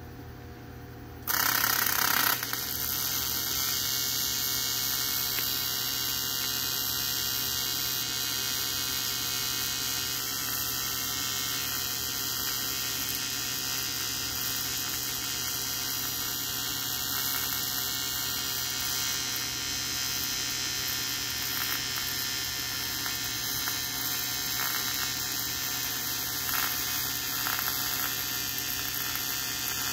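AC TIG welding arc on aluminum exhaust tubing. It strikes about a second in with a brief louder crackle, then holds a steady electric buzz with hiss.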